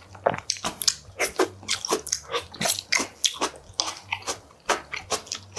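Close-miked chewing of a mouthful of food, with many quick, irregular clicks from the mouth.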